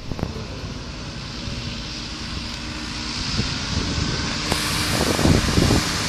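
Changlin backhoe loader's diesel engine running as the machine drives across a field, growing louder as it comes closer. Near the end, wind buffets the microphone.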